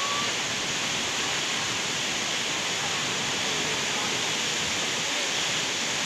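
Steady rush of a tall waterfall and its water running over the rocks below, a continuous even hiss without breaks.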